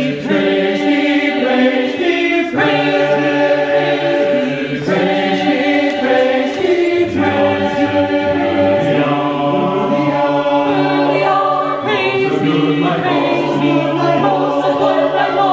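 Mixed choir of sopranos, altos, tenors and basses singing a cappella in several parts, holding sustained chords that change every second or two.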